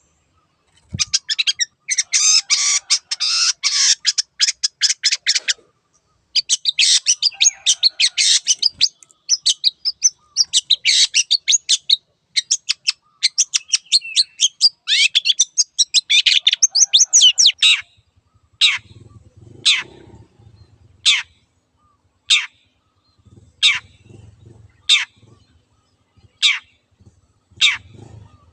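Long-tailed shrike (cendet) singing loudly: a fast, harsh chattering song in long bursts for the first two-thirds. It then switches to a run of single sharp whistles that slide downward, about one every second and a quarter.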